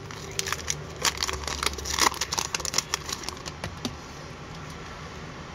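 Foil hockey card pack wrapper being torn open and handled, a run of sharp crackles and ticks that eases off near the end.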